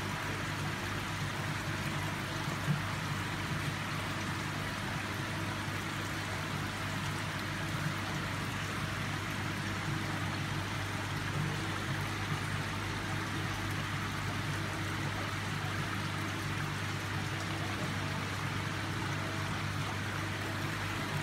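Steady trickle and rush of aquarium water circulation, with a low, even hum from the filtration pump.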